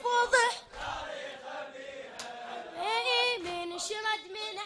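A crowd of men chanting together in a Shia latmiyya mourning routine, the chant swelling about three seconds in, with a couple of sharp strikes among the voices.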